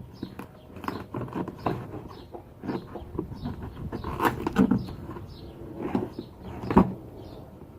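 A cardboard shipping box and its packing being handled and opened: irregular rustling and scraping with scattered knocks, the sharpest about four and seven seconds in.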